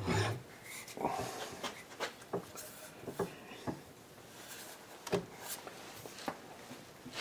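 Light, irregular clicks and knocks of a hollow punch and the steel lever of a small hand arbor press being handled and set up, with the punch resting on a rubber sheet over masonite.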